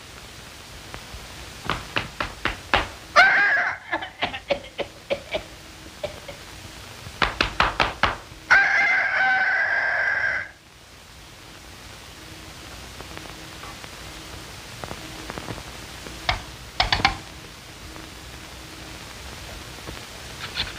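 Cartoon sound effects: two runs of rapid knocking, a short squawk, and a held pitched tone lasting about two seconds, then two more knocks near the end, over a low steady hum.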